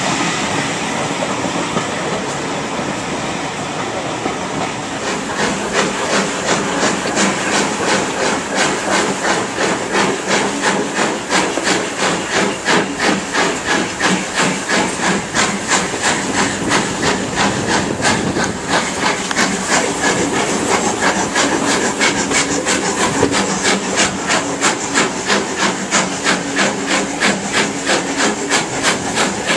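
LMS Fowler 4F 0-6-0 steam locomotive 43924 working hard, its exhaust beating in an even rhythm of about two and a half chuffs a second. It is heard from a carriage of the train it is hauling, over the rolling noise of the coaches. For about the first five seconds there is only a steadier rolling rumble; the beats come in after that.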